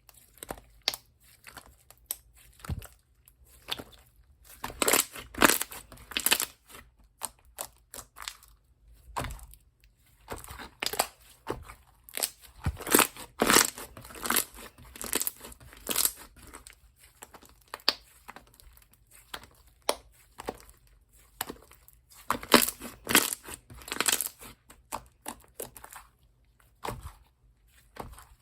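Slime being squeezed, stretched and pressed by hand, giving bursts of crackling, popping clicks with short quieter pauses between them.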